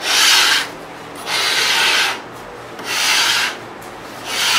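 Four long scraping strokes across the particle board benchtop, about one every second and a half, as rough glue spots are smoothed off.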